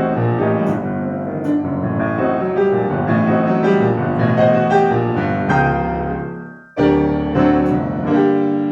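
Solo piano playing classical music. Many quick notes and chords fade to a brief pause about two-thirds of the way through, then fresh chords are struck, and the last one is held and rings on.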